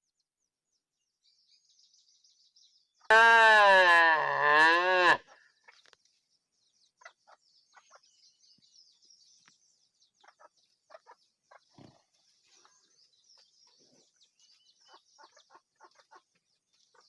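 A cow mooing once: one drawn-out call of about two seconds that sags in pitch in the middle and rises again at the end. Faint scattered chirps and clicks follow in the background.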